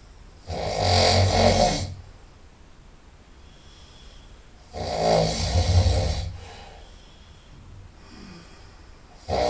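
A person snoring loudly through the nose, about one snore every four and a half seconds: two long snores, with a third starting right at the end and quieter breaths in between.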